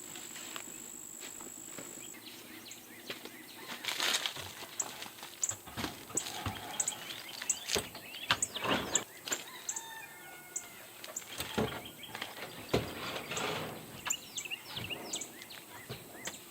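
Outdoor rural ambience: an insect's steady high trill that stops about two seconds in, small birds chirping, and several short bursts of rustling noise.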